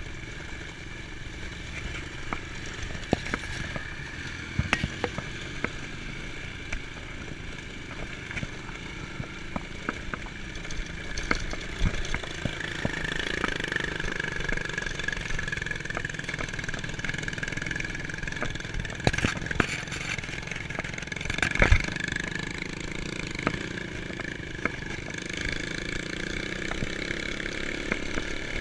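Dirt bike engine running while riding, heard from a camera mounted on the bike, with many sharp knocks and rattles along the way. The engine gets louder a little under halfway through, and one hard knock stands out about three quarters of the way in.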